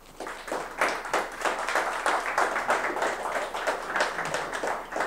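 An audience applauding, starting just after the speaker's closing thanks: a steady patter of hand claps.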